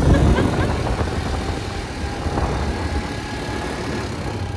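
Quad bike's engine running as it rides along, with wind rushing over the phone's microphone; the noise is heaviest at the bottom and surges right at the start.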